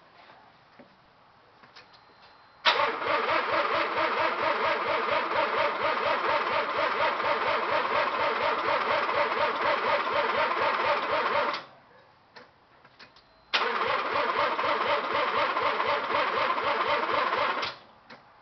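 1984 Mazda RX-7 GSL-SE's 13B rotary engine turning over on the starter motor in two cranking attempts, the first about nine seconds long and the second about four, with an even pulsing rhythm and never firing. It cranks but won't start because there is no spark.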